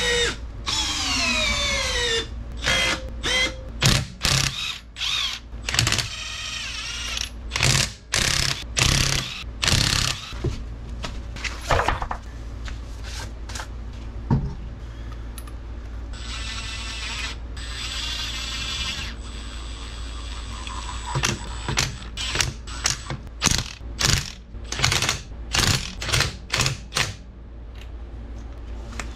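Cordless Makita impact wrench running in many short bursts, spinning and hammering lug nuts on and off a car wheel during a tyre swap, with a longer steady run partway through, over a steady low hum.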